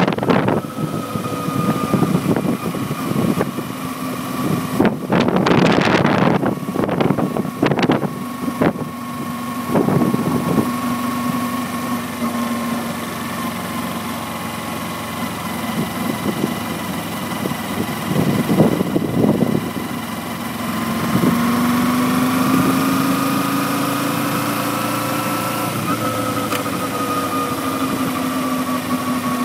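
Kawasaki Ninja 250R's parallel-twin engine ticking over at a steady pitch as the bike coasts in neutral, with gusts of wind buffeting the microphone several times. A little past two-thirds through, the engine note lifts slightly, then slowly eases back down.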